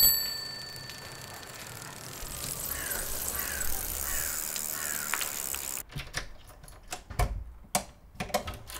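A single bright metallic ding at the start, then street ambience as a bicycle rolls along, with a bird calling four times. About six seconds in, the sound turns to a quiet hallway with a series of sharp clicks and knocks, including a dull thud, from a front door's locks being worked.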